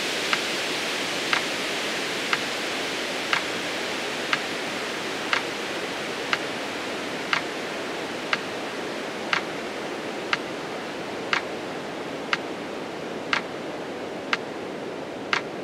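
Metronome ticking once a second over a steady hiss that slowly fades.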